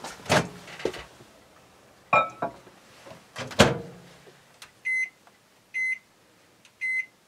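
Oster microwave oven being loaded and set: a few clicks and one loud knock as the bowl goes in and the door shuts, then three short, high keypad beeps about a second apart as the cooking time is entered.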